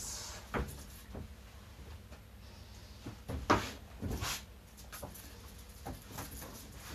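A few soft knocks and rustles from handling large plastic water bottles and shifting on an exercise mat, the loudest about halfway through, with quiet room tone between them.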